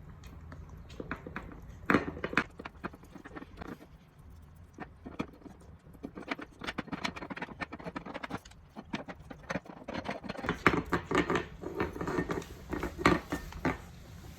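A dog licking a porcelain Hummel figurine: irregular wet licks and clicks, sparse at first and busier in the second half.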